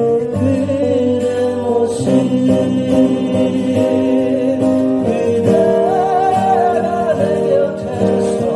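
A song sung to acoustic guitar accompaniment, with long held sung notes.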